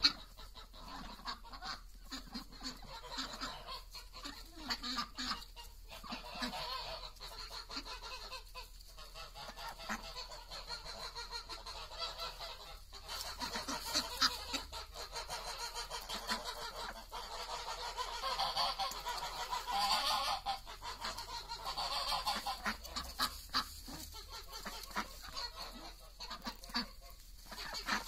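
A flock of white domestic ducks calling over and over with honking quacks, the calls overlapping and busiest about two-thirds of the way through.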